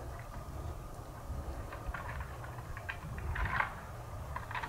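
Steady low rumble, like wind on the microphone, with faint scattered ticks and rustles, and one short, soft sound about three and a half seconds in.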